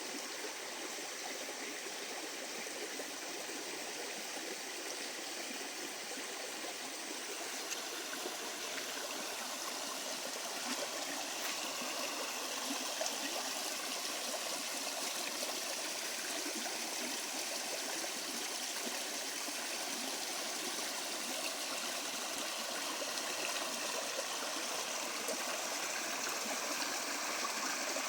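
Small river flowing and gurgling over stones, a steady rush of water with fine trickling texture that grows slightly louder over the stretch.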